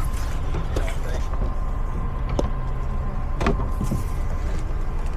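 Steady low rumble of a nearby vehicle, with a few light clicks and knocks scattered through it.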